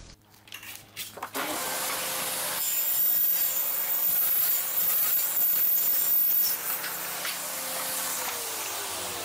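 A table saw starts up about a second in and rips a strip off a sheet of plastic laminate, the cut louder and hissier in the middle. Near the end the saw is switched off and its pitch falls as the blade spins down.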